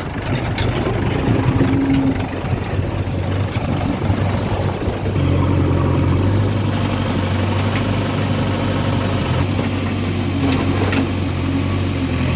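Large diesel engine of working heavy machinery running, uneven at first and settling about five seconds in into a steady low drone. A few faint knocks sound near the end.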